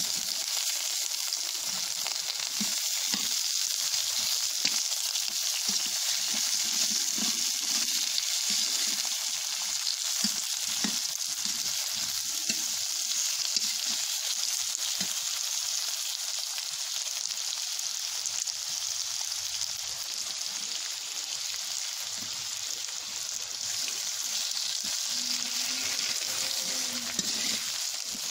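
Chopped vegetables frying in hot oil in an iron kadai, a steady loud sizzle, with irregular knocks and scrapes of a ladle stirring against the pan, most of them in the first half.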